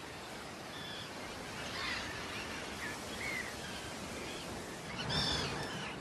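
Steady wash of sea surf against a rocky shore, with short bird calls dotted through it and a small cluster of calls about five seconds in.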